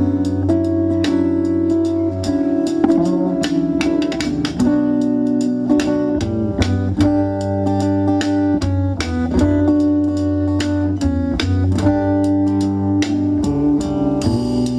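Instrumental break in a song: plucked and strummed guitar over bass and drums, with no singing.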